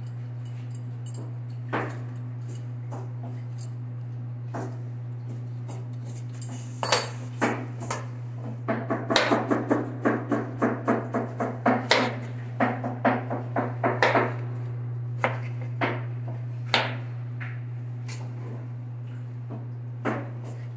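A kitchen knife striking a plastic cutting board while mangoes are cut. A few scattered knocks and a ringing metal clink give way, about a third of the way in, to a quick run of chopping strokes at about three a second, which then thins back to occasional knocks. A steady low hum runs underneath.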